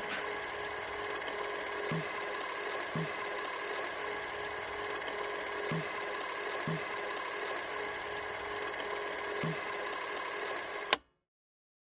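Film projector running with a fast, even mechanical clatter and a steady whir, which stops suddenly with a click near the end.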